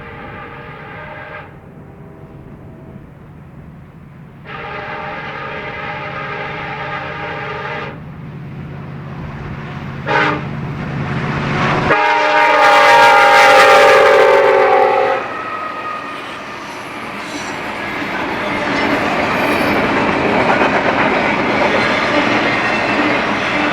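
Diesel freight locomotive air horn sounding the grade-crossing signal: two long blasts, one short and a final long one, getting louder as the train approaches. The train then passes with a steady rumble and clatter of wheels on rail.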